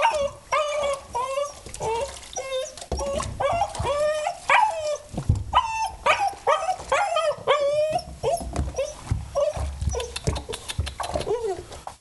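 Wolf-dog hybrid whining and yipping in a continuous string of short, high calls that rise and fall, protesting at being bathed. Some low thumps sound under the calls in the middle.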